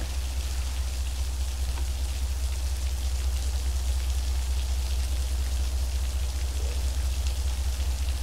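Heavy rain falling steadily, pattering on the platform roof and tracks, with a steady low rumble underneath.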